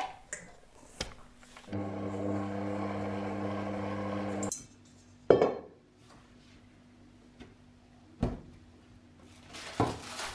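An electric mixer runs steadily for about three seconds, kneading shortcrust dough, then cuts off suddenly. A sharp knock on the wooden worktop follows, then another, and near the end cling film crinkles as the dough is wrapped.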